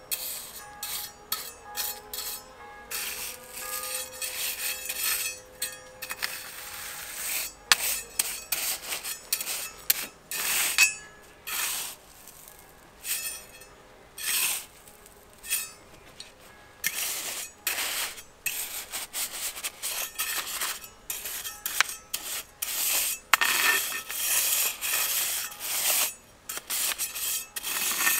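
Small metal trowel scraping and scooping loose crushed granite grit, in a long string of short, irregular rasping strokes, as the fill is spread and levelled.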